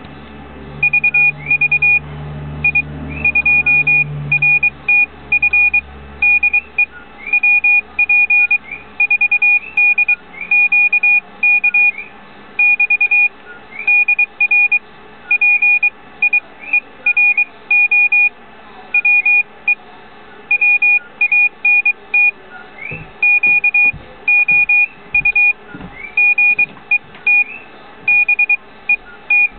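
Morse code (CW) sidetone beeping in dots and dashes, keyed by hand on an iambic paddle, at an even sending speed with gaps between letters and words. A few low knocks sound late on.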